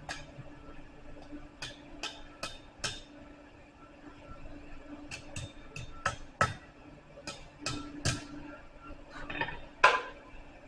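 Blacksmith's hammer striking hot steel on an anvil while curling a scroll: irregular, fairly light taps in small clusters of two to six, each ringing briefly, the loudest blow near the end. A steady low hum runs underneath.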